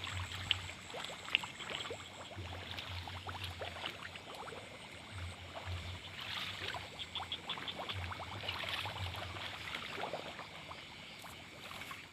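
Water sloshing and trickling with scattered clicks and knocks, as of wading through shallow water. A fast, high, pulsing insect trill runs for about the first two seconds, and a short run of rapid ticks comes near the middle.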